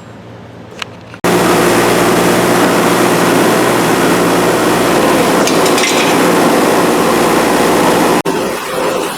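Bench grinder with a wire wheel running, starting suddenly about a second in: a steady motor hum under the loud rasp of wire bristles scrubbing a metal ratchet part.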